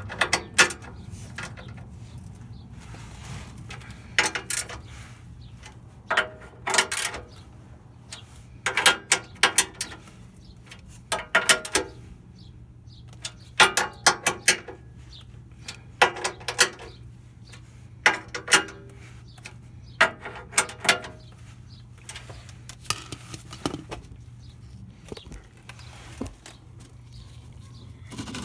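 Short clusters of metallic clinking and rattling, repeated every two seconds or so, over a steady low hum.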